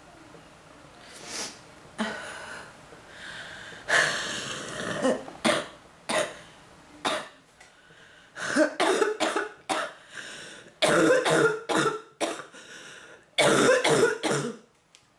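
A woman with bronchitis in a coughing fit: repeated bursts of coughing in clusters with short pauses between them, starting about a second in and coming thicker and louder in the second half.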